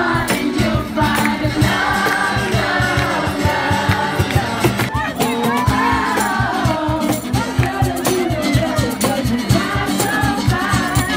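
Music with singing voices over a fast, steady percussion beat.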